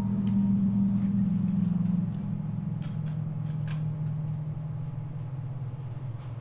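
A low, steady droning hum, likely from the film's soundtrack. It drops slightly in pitch about two seconds in and slowly grows quieter, with a few faint ticks partway through.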